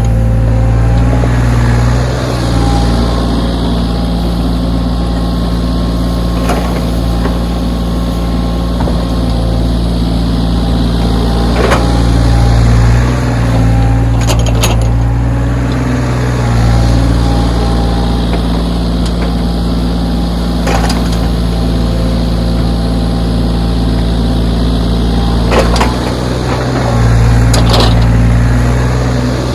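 Backhoe's diesel engine running, its pitch and level rising and falling as the hydraulics are worked, with occasional sharp clanks from the bucket and arm working the snow.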